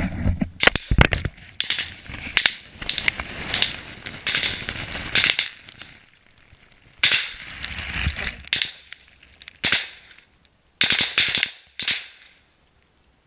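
Small-arms gunfire in a firefight: rapid bursts and single shots with short pauses between them. The firing stops shortly before the end.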